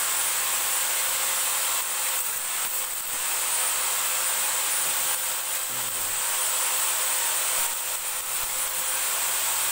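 Stick arc welding on steel square tubing: a steady sizzling hiss from the arc, dipping slightly a couple of times.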